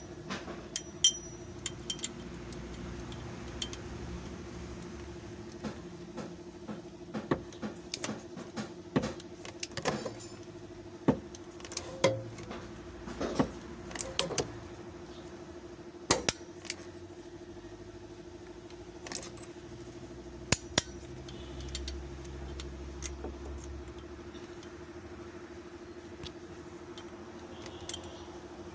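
Sharp metallic clicks and clinks of a socket and long-handled wrench on a Suzuki F6A's cylinder head bolts as they are torqued down, coming in irregular clusters and thinning out in the second half. A steady low hum runs underneath.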